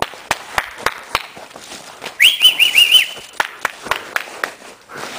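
Footsteps crunching through dry leaves and crusted snow, irregular sharp crackles. A couple of seconds in comes a short warbling whistle of about five quick rising-and-falling notes, the loudest sound.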